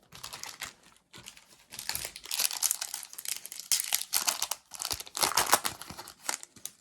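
Foil wrapper of a Panini Flux trading-card pack crinkling and tearing as it is opened: a dense crackle of small rustles that grows louder about two seconds in.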